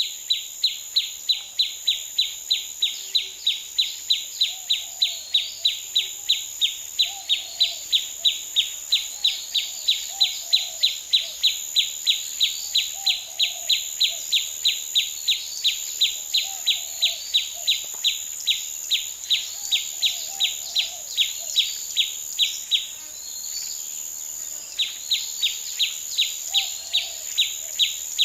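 Night insects such as crickets chirping in a loud, very regular pulse about three times a second, with a steady high-pitched insect drone beneath it. The pulsing stops for about two seconds near the end and then resumes. Faint, scattered bird calls come through underneath.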